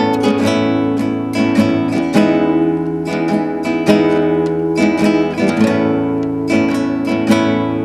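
Solo nylon-string classical guitar, fingerpicked: a melody of plucked notes over ringing chords, several notes a second.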